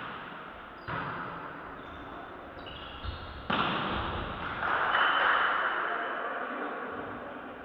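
A volleyball being struck and bouncing in a sports hall during a rally: sharp hits about a second in and around three and a half seconds in. A swell of echoing hall noise follows, loudest about five seconds in and fading away.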